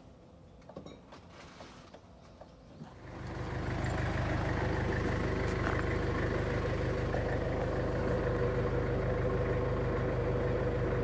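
A few faint clicks and taps, then about three seconds in a vehicle engine swells up over a second and runs steadily at idle.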